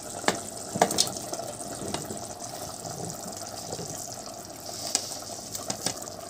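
Frozen diced potatoes, carrots and peas tipped from a plate into a pot of meat simmering in tomato sauce: a steady sizzling hiss, with a few sharp clinks against the pot.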